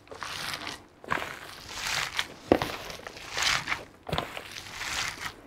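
Gloved hands kneading and squeezing a mixture of minced pork, pork skin, rice and garlic in a plastic tub, in repeated rustling squeezes about once a second.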